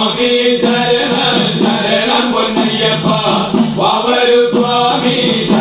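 A group of men chanting a Malayalam devotional song in chorus, accompanied by small hand-held hourglass drums (udukku) beaten in a steady rhythm.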